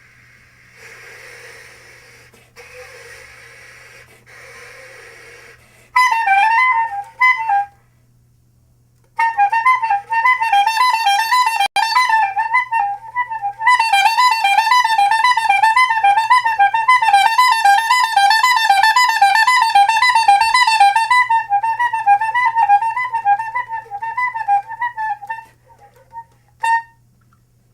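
Woodwind played in free improvisation: three soft breathy puffs of air, then a fast warbling trill on one high pitch. The trill breaks off for a moment, resumes for about sixteen seconds, and ends with one short note.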